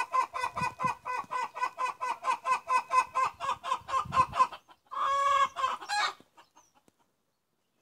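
Chicken clucking in a fast, even run, about five or six clucks a second, then one longer squawk about five seconds in.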